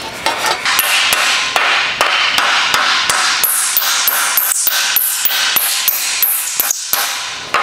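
Plastic-headed mallet striking the edge of a steel sheet over a wooden block in rapid, repeated blows, about three to four a second in the latter part, each with a short metallic ring: hammering tucks flat to shrink the panel's edge by hand.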